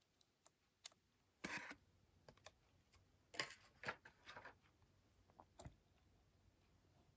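Faint, irregular small clicks and short rustles of small plastic pieces and packaging being handled, typical of opening and handling a plastic scale-model truck.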